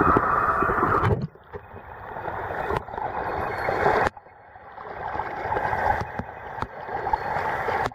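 Stream water rushing and gurgling close to the microphone. The sound cuts and changes abruptly several times, about every one to two seconds.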